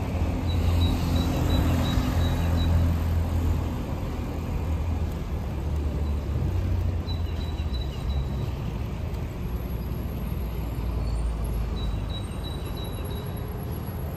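City street traffic: cars and vans passing with a steady low rumble of engines and tyres, a little louder in the first few seconds. A faint high tone comes and goes about three times.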